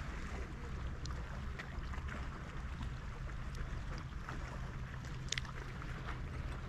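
Seaside ambience: a steady low rumble with wind on the microphone and water lapping, broken by a few small clicks, the sharpest about five seconds in.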